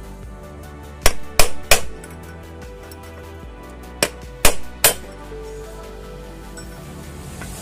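Hammer blows on metal, two quick groups of three strikes about three seconds apart, each ringing briefly, over soft background music.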